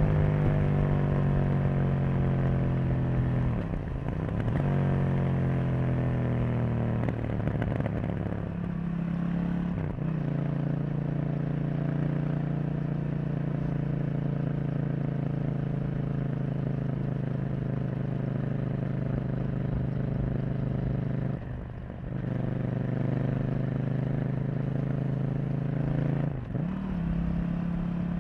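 KTM 790 Duke's parallel-twin engine running under way. The note falls over the first few seconds as the bike slows, then holds steady at a cruise, with brief dips about five times.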